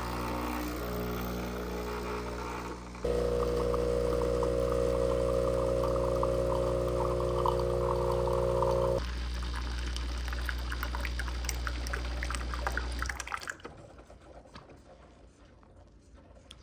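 Breville Barista Express espresso machine's vibratory pump pulling a shot. It gives a softer pre-infusion hum at first, then a louder, steady buzzing drone about three seconds in. The drone eases at about nine seconds and cuts off about thirteen seconds in, with espresso trickling into the mug.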